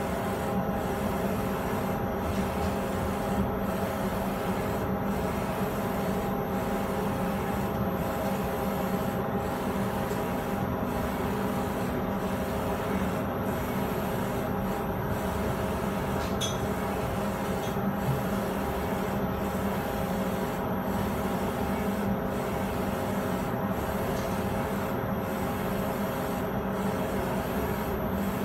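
Direct-to-garment textile printer running: a steady machine hum and hiss with a regular beat as the print head carriage shuttles back and forth across the shirt.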